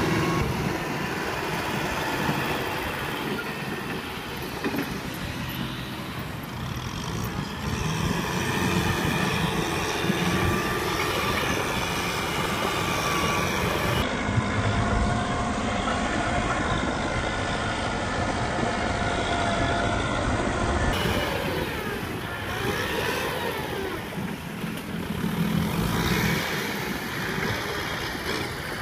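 Kubota M6040SU tractor's four-cylinder diesel engine running under load while its front blade pushes dirt, the engine pitch shifting in places.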